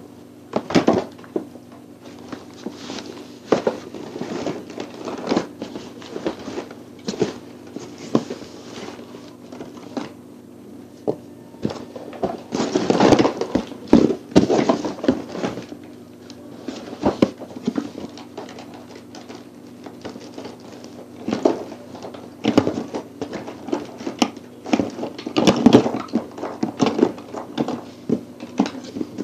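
Rummaging and close handling noise: irregular clicks, knocks and rustles of small makeup items being moved about near the microphone, busier in two spells.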